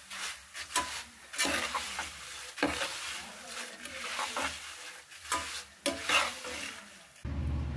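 A metal spoon stirring and scraping thick beaten rice flakes (aval) frying in hot oil in a kadai, in irregular strokes over a steady sizzle. Just before the end the sound cuts to a steady low hum.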